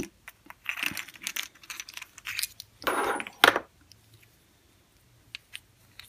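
Small hard plastic toy pieces and the halves of a plastic capsule egg clicking and rattling as they are handled, with a longer, louder rattle about three seconds in, then only a few faint clicks.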